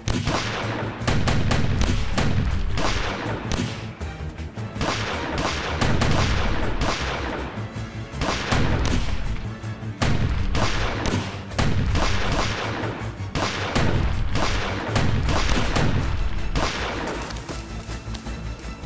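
Gunfire: pistol shots fired in rapid volleys, one burst after another every second or two. Music comes up under the shots near the end.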